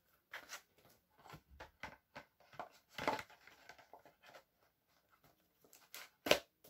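Plastic DVD box set being handled: scattered soft clicks and rustles as the disc trays are turned, with one sharper click about six seconds in.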